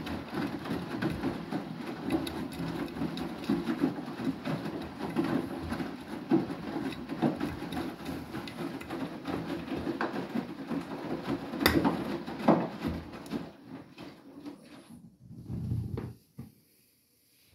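Beko WTK104121W front-loading washing machine in its main wash: the drum turning, with water sloshing and a small load of clothes tumbling, broken by scattered knocks. The churning dies away near the end as the drum comes to rest between rotations.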